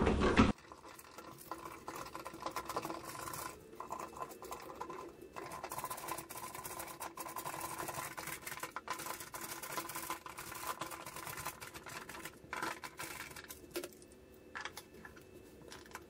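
Screwdriver turning the mounting screws of a GFCI receptacle as it is seated in the wall box: a run of faint, irregular small clicks and scrapes over a faint steady hum.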